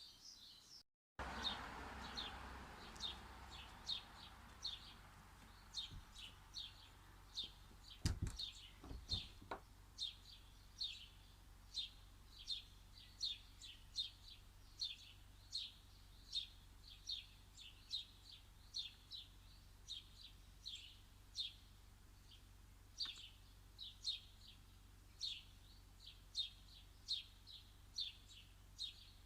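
A small bird repeating one short, high chirp over and over, about two a second. A couple of soft knocks come about eight and nine seconds in.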